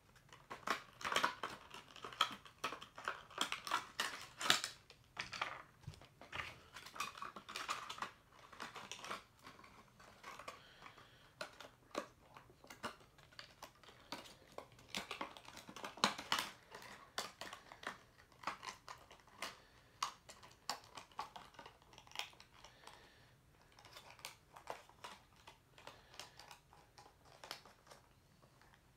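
Cardboard box and plastic packaging of a diecast model truck being ripped open and handled: an irregular string of crackling clicks and tears, busiest near the start and again about halfway through.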